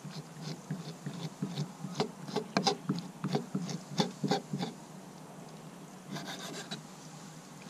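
Kitchen knife scraping and cutting against a wooden cutting board in quick, irregular strokes as raw chicken is trimmed, going quieter after about four and a half seconds.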